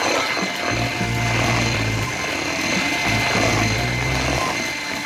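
Electric hand mixer running steadily at speed, its twin wire beaters whisking a frothy batter in a plastic bowl, with a steady high motor whine. Background music plays underneath.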